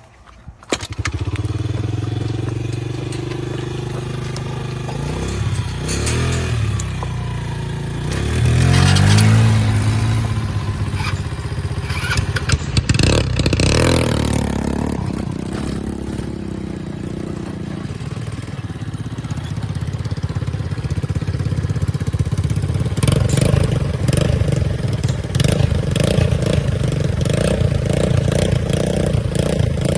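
Small vehicle engine running as it is ridden, its pitch rising and falling as it speeds up and slows, with clattering and rattling over bumps, loudest in the middle.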